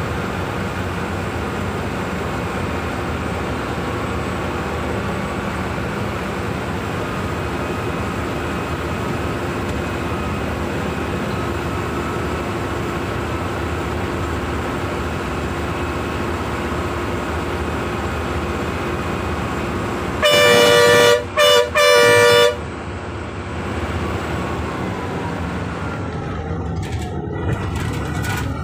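Inside a KSRTC bus on a hill road: a steady drone of the bus's engine and road noise. About twenty seconds in, a loud multi-tone horn sounds three times, long, short, long, as a warning on the approach to a blind hairpin bend.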